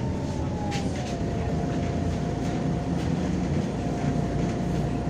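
Interior of a MAZ-203 city bus under way: a steady drivetrain rumble with a thin whine that falls in pitch about a second in and then holds steady.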